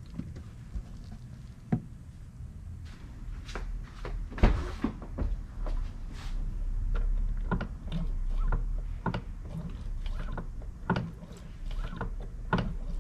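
Irregular clicks and knocks of hand tools and metal parts being handled, with one loud knock about four and a half seconds in.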